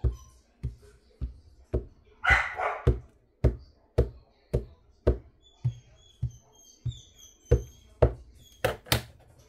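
An ink pad dabbed over and over onto a silicone stamp lying on paper on a desk, making dull taps about twice a second, with a short rustling burst about two seconds in.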